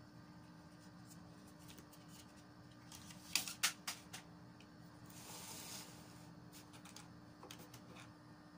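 Handling noises as a computer processor is set into its motherboard socket: a few sharp clicks about three and a half seconds in, a short rustle a little later, and light ticks near the end, over a faint steady hum.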